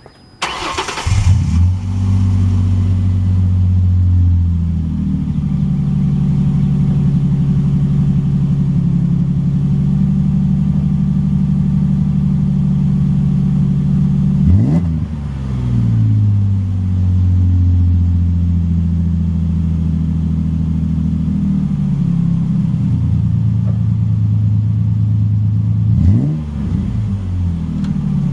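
2004 Ford Ranger Edge's V6 through an aftermarket Magnaflow muffler and exhaust, starting up about a second in and then idling with a deep, steady note. The throttle is blipped once about halfway through and a couple more times near the end, the pitch climbing and falling back quickly each time.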